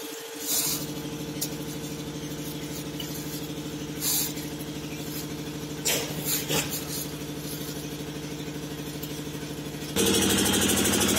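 Tractor-mounted sewer suction machine running steadily while its hose draws water from a drain pit, with a few short bursts of rushing noise over the steady machine sound. The machine gets clearly louder about ten seconds in.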